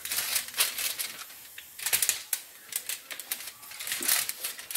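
A silicone spatula spreads melted white chocolate across a foil-lined baking sheet. The aluminium foil scrapes and crinkles in quick, irregular strokes, several a second.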